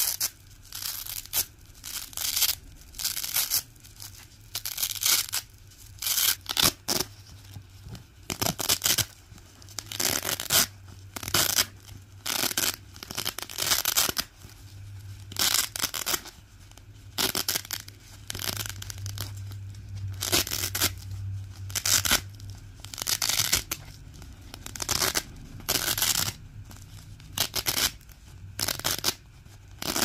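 Black and white hook-and-loop (Velcro) strips being ripped apart over and over, a crackly tearing rip roughly once a second with short pauses between.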